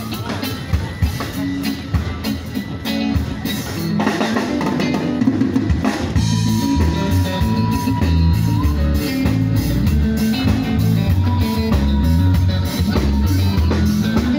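Live band playing through a PA: drum kit beating with bass and guitar, the music getting fuller about four seconds in. A long held lead note comes in about six seconds in, and again later.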